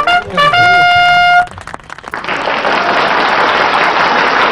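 A short brass fanfare, a few quick notes ending on one held note, followed about two seconds in by an audience applauding steadily.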